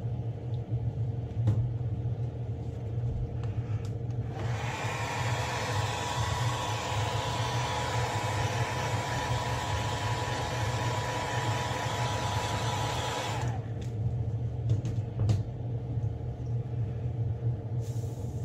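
Hand-held hair dryer blowing for about nine seconds, an airy hiss with a steady whine, switched on about four seconds in and cut off suddenly. It is heat-setting freshly airbrushed paint. A steady low hum runs underneath throughout.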